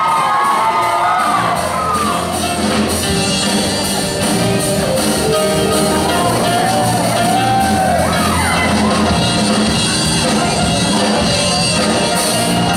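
Backing music for a show choir's dance number, with voices shouting and whooping over it.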